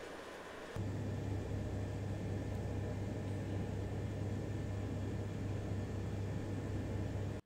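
Steady low electric hum with an even hiss, from a running electric appliance. It gets louder about a second in and cuts off abruptly at the end.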